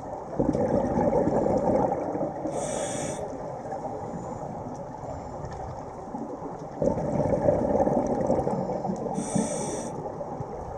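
Scuba diver breathing through a regulator underwater: twice, an exhale releases a rush of rumbling bubbles that fades over a couple of seconds, followed by a short, sharp hissing inhale through the demand valve.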